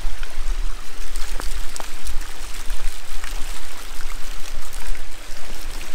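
Steady running, splashing water at a garden pond, with a low rumble underneath.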